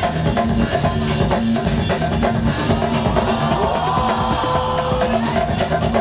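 Loud music with a driving drum-kit beat and bass line, played by the DJ over the venue's sound system to accompany a breakdancer's round.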